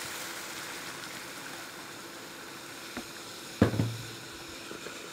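Boiling water from an electric kettle pouring into a pot of toasted rice and vermicelli, a steady watery hiss that fades over the first couple of seconds. A sharp knock comes about three and a half seconds in.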